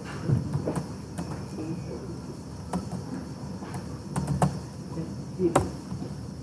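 Computer keyboard keys clicking in scattered, irregular keystrokes as a command is typed, a few strikes louder than the rest, over steady low background noise.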